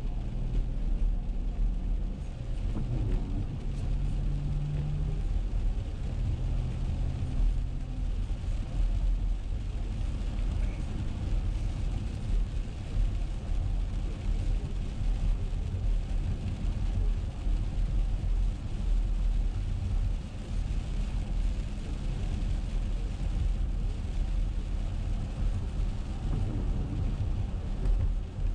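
Steady road noise inside a moving car on a wet highway: a constant low rumble of tyres and engine, with an even hiss from the tyres on the rain-soaked pavement.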